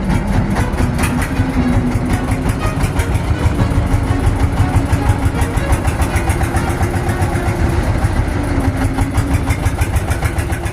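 Engine running steadily with a fast, even pulsing.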